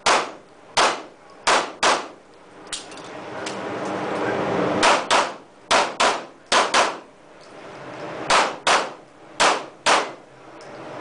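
Pistol shots in a USPSA stage, fired mostly in quick pairs (double-taps), about fourteen shots with short gaps between the pairs, in an indoor range.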